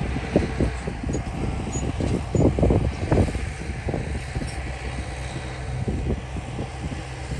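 Heavy diesel earthmoving machinery running, a steady low engine drone under irregular clanks and knocks that are heaviest about two to three seconds in.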